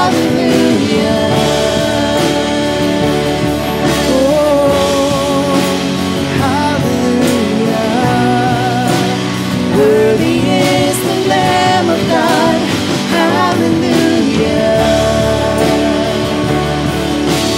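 Live worship song: a band with acoustic and electric guitars playing under a sung melody.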